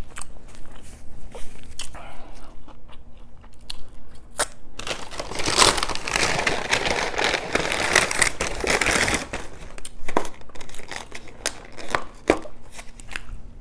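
Close-miked mukbang eating sounds: biting and chewing with scattered crunchy clicks. A denser stretch of food packaging crinkling runs from about five to nine seconds in.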